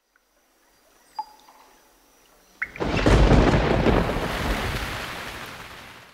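Thunder-like crash sound effect: a faint blip about a second in, then a sudden hit about two and a half seconds in that swells into a heavy rumble and dies away slowly over about three seconds.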